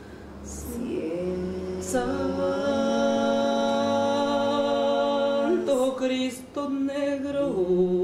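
Unaccompanied singing: a voice holds long, slow notes that step up and down in pitch in a chant-like melody.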